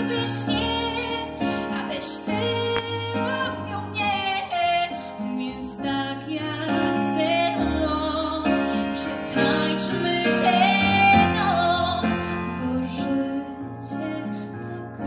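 A woman singing into a microphone, accompanied by a Roland FP-7 digital piano, with long held notes that waver in vibrato.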